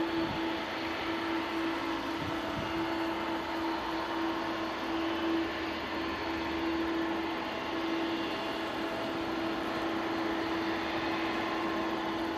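Boeing 777-200ER's Pratt & Whitney PW4000-series turbofans running at idle thrust as the airliner taxis. A steady jet hum with one held mid-pitched tone over a broad hiss.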